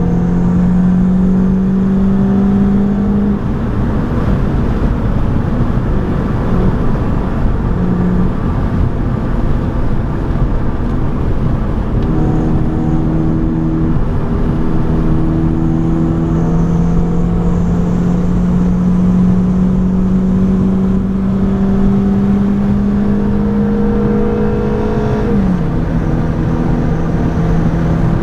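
BMW 118i's 2.0-litre four-cylinder petrol engine heard from inside the cabin over steady road and wind noise. Its note fades out for several seconds near the start, then climbs slowly for about thirteen seconds before dropping sharply, as at an upshift.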